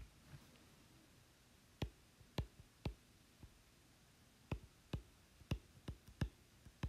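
Apple Pencil tip tapping on an iPad's glass screen while handwriting numbers: a dozen or so sharp, separate clicks at irregular spacing, some in quick pairs.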